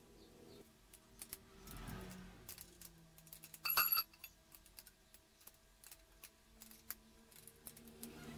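Steel spanner clinking and clicking against engine bolts and casing while a bolt is worked, with one brief ringing metallic clang about four seconds in.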